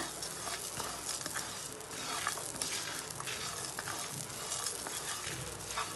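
Spatula stirring spices, cashews and grated coconut as they dry-roast in a pan without oil: a steady low hiss with light scrapes and small clicks.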